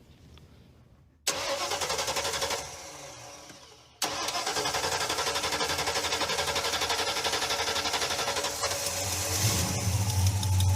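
Car engine being cranked by its starter: a short burst of cranking about a second in that fades out, then a second long crank starting about four seconds in, with the engine catching and running near the end.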